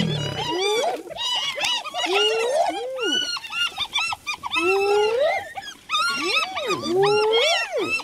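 A pack of spotted hyenas calling over one another while mobbing a lion: many overlapping short yelps and whoops, each rising and falling in pitch, several a second.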